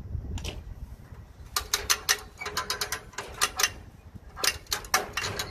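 Hand-operated cable come-along (ratchet winch puller) being pumped: its ratchet pawl clicks in three quick runs as the handle is worked, reeling in the cable that pulls a zero-turn mower up onto a trailer.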